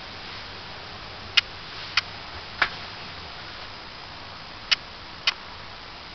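Five short, sharp clicks over a steady hiss: three about half a second apart, then a pause, then two more close together.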